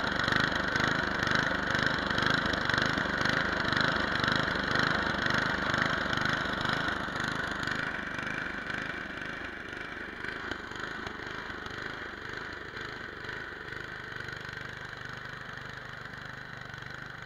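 Gas snowblower engine running steadily with a pulsing beat, loud and close at first, then quieter and more distant from about eight seconds in.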